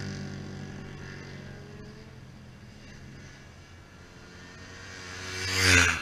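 A motorcycle's engine fades away down the road. Then a car approaches and passes close by, its engine and tyre noise rising quickly to a loud peak near the end and falling in pitch as it goes past.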